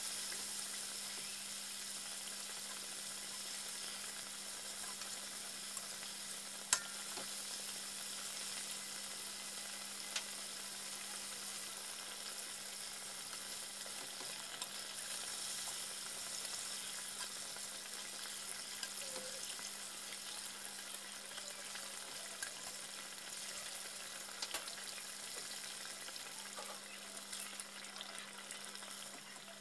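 Flour-battered turkey pieces deep-frying in a pot of hot oil: a steady sizzle, with a few sharp clicks as plastic tongs turn the pieces against the pot, the loudest about seven seconds in.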